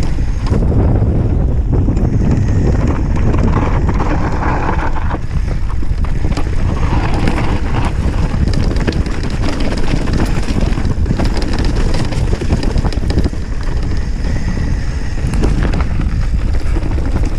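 Mountain bike descending a dirt and gravel trail: a steady low rumble of wind on the chest-mounted camera's microphone and knobby tyres on the ground, with frequent knocks and rattles from the bike over bumps.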